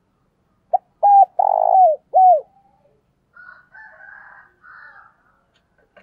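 Spotted dove cooing: one phrase of four coos, short, short, a long drawn-out third, and a last one dropping in pitch at its end.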